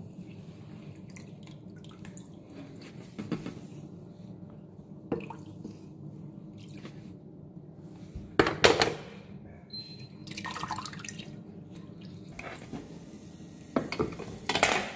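Wet nettle leaves being lifted out of rinse water and handled in a metal bowl: water dripping and splashing, with knocks and clatter from the bowl, loudest about halfway through and near the end. A steady low hum runs underneath.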